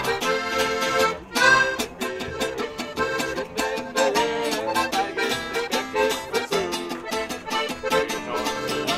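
Upbeat Alpine folk music: an accordion plays the tune over guitar accompaniment with a steady, quick beat.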